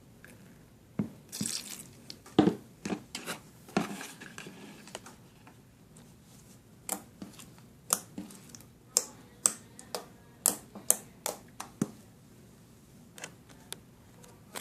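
Homemade slime squeezed and worked by hand, making irregular wet squelches and sharp little pops.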